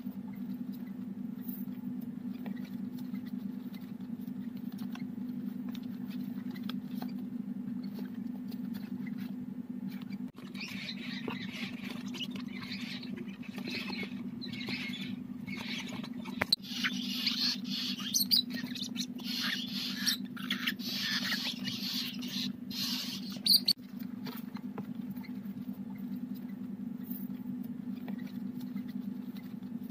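Young African lovebird chicks calling, a high chattering and squeaking mixed with sharp rustling clicks. The calls start up about a third of the way in, grow loudest in the middle and stop abruptly. A steady low hum runs underneath.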